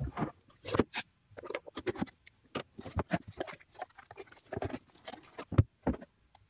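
Small cardboard shipping box being opened by hand: flaps pulled back and packing handled, a string of irregular rustles, scrapes and taps.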